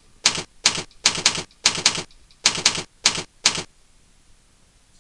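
Typing keystrokes: about ten sharp clacks, some single and some in quick pairs, as an email address is typed. They stop a little past halfway.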